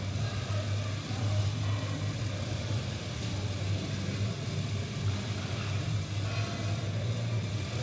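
Steady low hum of background room noise in a large gym hall.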